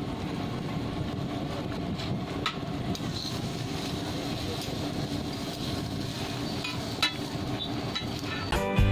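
Steady background hum and clatter of a busy dosa griddle stall, with a few sharp metal clicks of a steel spatula striking the flat iron griddle. Music starts just before the end.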